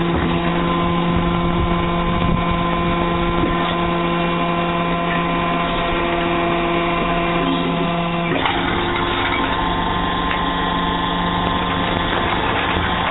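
Hydraulic brick-making machine running: a steady mechanical hum with several held tones. A short click comes about eight seconds in, and the tones shift slightly after it.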